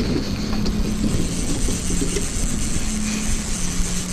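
Boat's outboard motor running steadily at low trolling speed, with light clicking from fishing reels being wound in.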